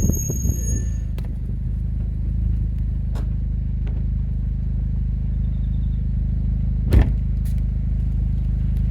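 Volkswagen Golf GTI Mk5's 2.0-litre turbocharged four-cylinder engine idling steadily through its stock exhaust, with one short knock late on.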